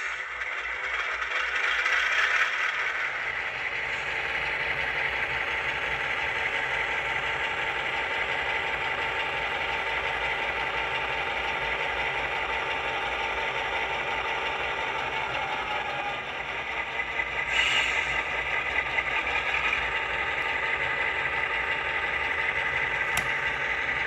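HO scale model diesel locomotive's sound decoder playing a diesel engine running steadily through its small onboard speaker, with rattling as the locomotive moves with its boxcars. A brief louder burst comes about seventeen seconds in.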